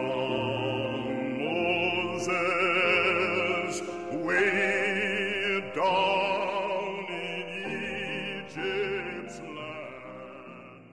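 Background music: operatic-style singing with heavy vibrato on long held notes over accompaniment, fading out near the end.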